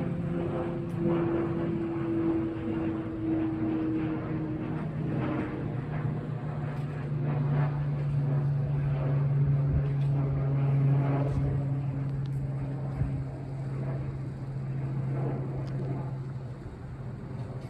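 An airliner flying past: a steady engine drone with a few held tones that glide slowly down in pitch as it goes by.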